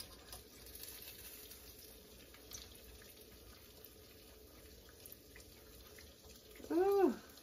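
Hot frying oil in a skillet giving a faint steady sizzle, with a few light clicks of forks against the pan as fried pies are lifted out. About seven seconds in, a short rising-and-falling voice exclamation is the loudest sound.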